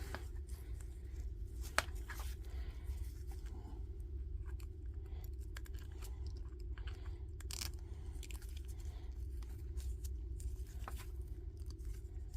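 Small clicks, rustles and scrapes of metal impact-driver chuck parts being handled during reassembly, with a sharp click about two seconds in and a few more later, over a steady low hum.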